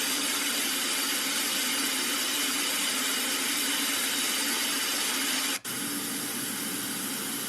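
White noise playing steadily from the Lielongren sound machine's built-in speaker. About five and a half seconds in it cuts out for a moment and switches to its slightly quieter pink noise setting.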